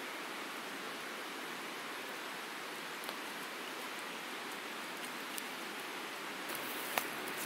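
Steady rush of flowing river water with a few sparse pops from a wood campfire, the sharpest about seven seconds in.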